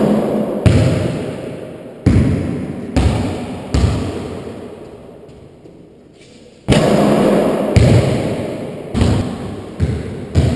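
Basketball striking the hoop just above the camera, then bouncing on the hardwood floor a few times at shortening gaps; about seven seconds in a second shot bangs into the hoop and is followed by the ball being dribbled. Each thud rings on in the echoing walled court.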